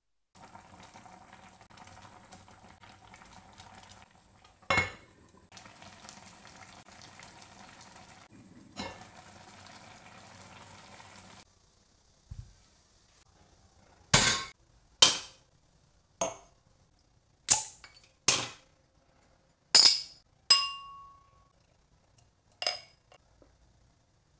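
Braising liquid with chicken legs bubbling steadily in an enamelled cast-iron pot, with two sharp taps of chopsticks against it. After a pause, about eight sharp clinks of dishes and glassware, some ringing briefly.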